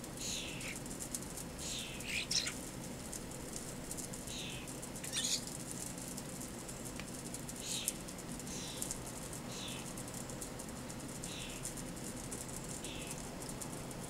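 A bird repeats a short, falling call about every second or two, with a few sharp flutters of wings as starlings flap on and off a hanging suet feeder.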